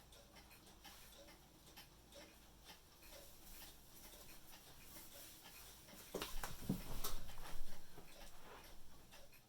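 Bulova mantle clock ticking steadily, with a louder burst of noise from about six to eight and a half seconds in.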